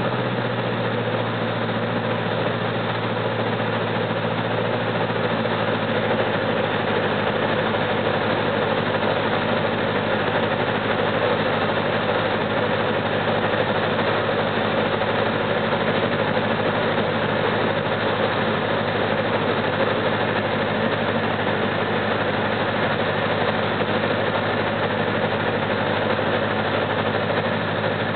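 Cabin noise of a Robin 200 light aircraft in flight on approach: the single piston engine and propeller running in a steady drone, mixed with rushing airflow.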